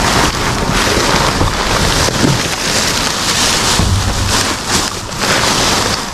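Clear plastic rubbish bags rustling and crinkling loudly as they are grabbed and shifted about inside a wheelie bin.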